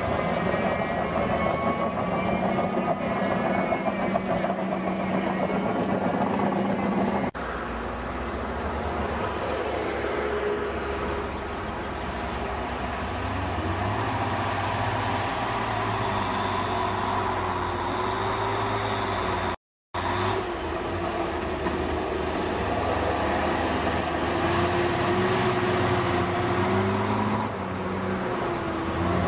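Bulldozer's diesel engine running under load, its engine speed rising and falling as it works. The sound changes abruptly about seven seconds in and cuts out completely for a moment about twenty seconds in.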